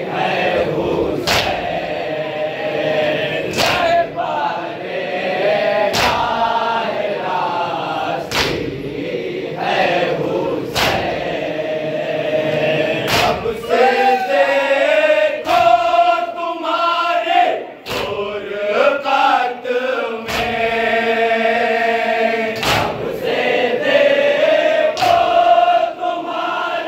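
A group of men chant a Shia nauha (lament) in unison. Through it comes a sharp, massed slap of chest-beating (matam) about every two and a half seconds, keeping the beat.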